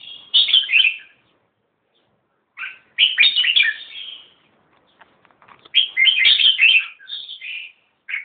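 Red-whiskered bulbul (jambul) singing: three short phrases of quick notes, a second or two apart.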